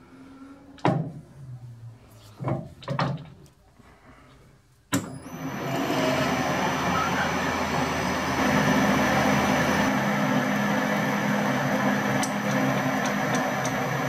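A few light knocks, then about five seconds in a metal lathe starts running steadily with a high whine, a flat-bottom drill in the tailstock boring a flat-bottomed counterbore into the end of a shaft adaptor held in the collet chuck.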